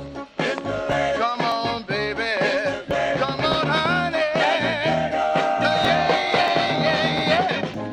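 Early-1960s rock and roll dance-craze record playing from vinyl, with a steady beat. A long note is held from about five seconds in for over two seconds.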